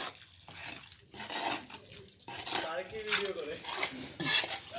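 Metal tools scraping and clanking in wet concrete, with irregular repeated strokes, as the concrete is mixed and spread for a floor casting.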